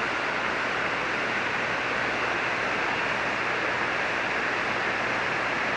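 Steady hiss of band noise from a single-sideband ham radio receiver tuned to 7.188 MHz with no station transmitting, the sound cut off above about 3 kHz by the receiver's filter, with a faint low hum underneath.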